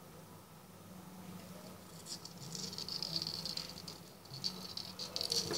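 Handling noise from fine wire and the small plastic parts of a homemade DC motor: scratchy rustling with light clicks, louder in the second half, over a low steady hum.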